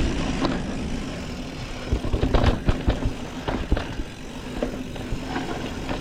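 Mountain bike descending a rough dirt trail: steady wind and tyre rumble, with a run of sharp knocks and rattles from the frame and chain about two to four seconds in as the bike hits rough ground.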